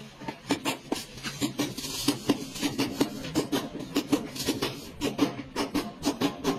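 Hammer striking a steel chisel held in the seam of a car's rear quarter panel, rapid metallic taps at about four a second, each ringing briefly through the sheet metal, as the chisel is driven along the panel seam.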